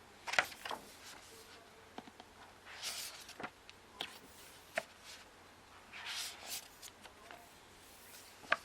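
Pages of a book being turned by hand: about three soft paper swishes a few seconds apart, with light taps and rustles of handling between them.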